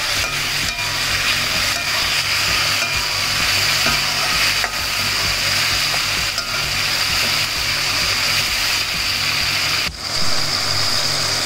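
Chopped tomatoes, onion and green chilli sizzling in hot oil in a metal kadai while a metal ladle stirs and scrapes against the pan, with a few short knocks of the ladle on the metal.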